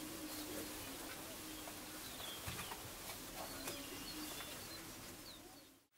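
Greater prairie chickens booming: males give low, hollow, cooing moans from their inflated orange neck sacs, in courtship display on the lek. Faint high chirps sound over them, and the sound fades out just before the end.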